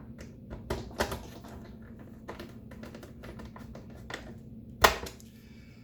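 Irregular small clicks and taps of a screwdriver and screws working on the plastic housing of a Hamilton Beach FlexBrew coffee maker as the back panel is fastened, with one sharper knock about five seconds in.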